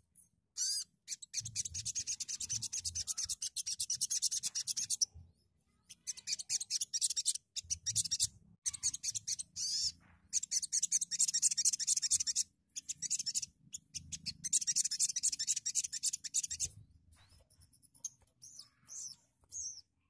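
Sogon (sogok ontong), a small long-billed songbird, singing rapid high-pitched chattering trills in four runs of a few seconds each, then a few short calls near the end.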